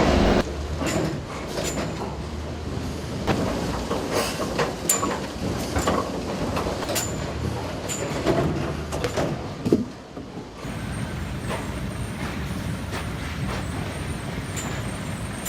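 Sawmill log-handling machinery running, with irregular knocks and clatter of logs. The sound drops and changes about ten seconds in.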